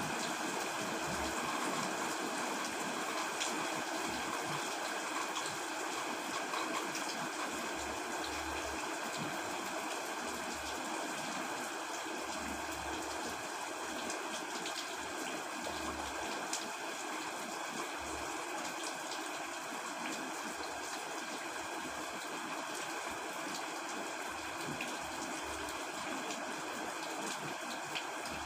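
Steady rain falling, a continuous even hiss with faint scattered ticks.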